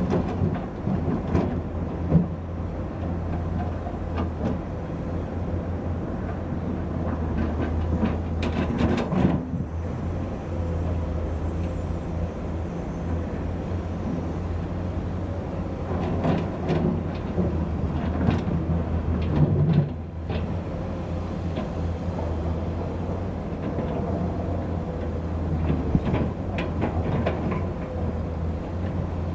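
A heavy construction machine's diesel engine running steadily, with intermittent metallic clanks and rattles from the machine at work.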